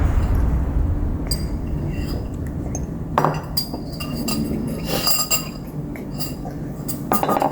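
Utensils clinking against dishes: a scattering of light, sharp taps, each with a short ring, thickest about three seconds in and again near the end.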